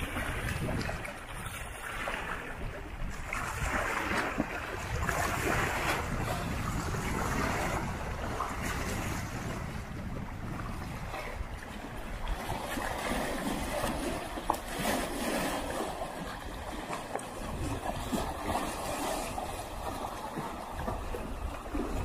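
Small lake waves lapping and splashing against a rocky shore in surges, with gusty wind rumbling on the microphone.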